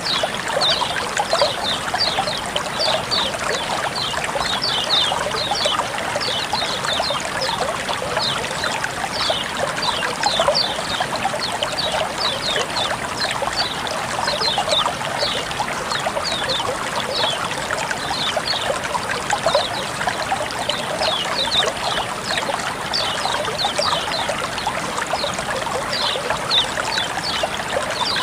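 Water flowing and trickling steadily, with many quick bright splashes and plinks over the even rush.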